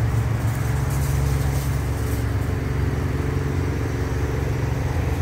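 A steady low mechanical hum, an even drone of running motors or machinery with no breaks.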